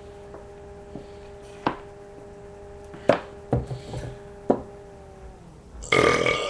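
Sharp clicks and knocks, about seven of them, from a plastic 2-liter bottle being handled and squeezed during a chug, over a steady hum that fades out about five seconds in. Near the end a loud, breathy exhale.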